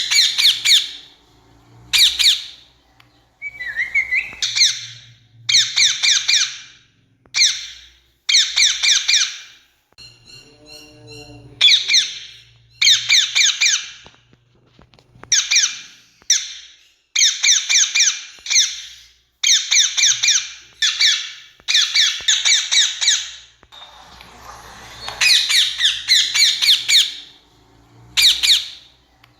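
Indian rose-ringed parakeet giving loud, harsh screeching calls in a long series of short bursts, each burst a rapid run of repeated notes, with brief pauses between them.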